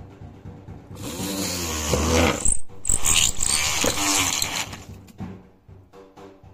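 Homemade drill driven by a 775 brushed DC motor, running and boring into a wooden strip: a motor whine whose pitch wavers up and down as the bit bites, over rough wood-cutting noise. It is loudest from about one second in to about five seconds, then drops back.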